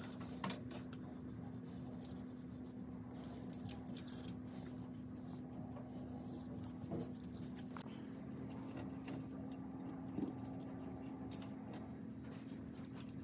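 Faint scratching and light ticks of a thin paintbrush working paint onto a plaster volcano model and brushing the foil beneath it, over a steady low hum.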